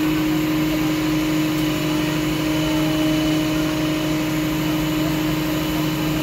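Engine of a Rosenbauer aerial ladder truck on a Volvo chassis running steadily: an even hum under a steady hiss.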